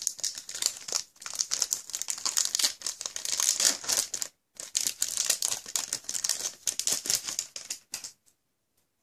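Foil wrapper of a Pokémon TCG booster pack crinkling as it is handled and torn open by hand: dense crackling with a short break about halfway, stopping about a second before the end.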